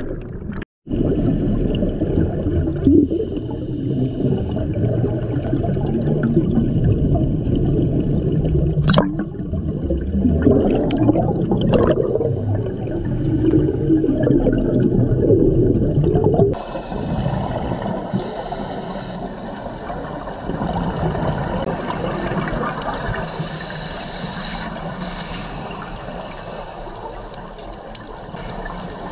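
Underwater sound of scuba divers' exhaled bubbles bubbling and gurgling. About halfway through it becomes quieter and more even.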